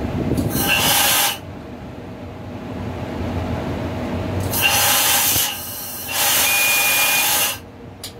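Train's air brakes hissing in three bursts, the longest near the end, over the low rumble of the train running slowly into the station.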